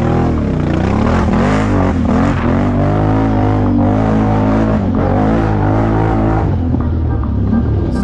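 Can-Am ATV engine revving up and down again and again as the throttle is worked on a muddy track, heard from a camera mounted on the machine. About three quarters of the way through the revving eases into a steadier run.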